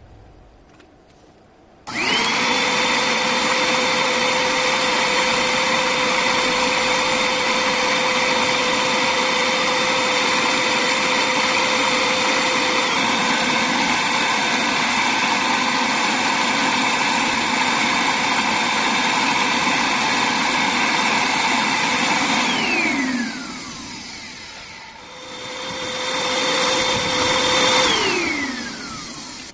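Small electric motor of a homemade cigarette-smoking machine, run from a computer power supply, drawing smoke through the rig with a steady high whine. It spins up quickly about two seconds in, is switched off and winds down with falling pitch about twenty-two seconds in, then runs again briefly and winds down once more near the end.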